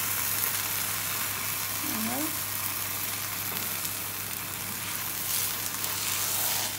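Parsley-and-cheese-stuffed msemen flatbread sizzling steadily as it fries in a hot pan, with a spatula scraping under it near the end.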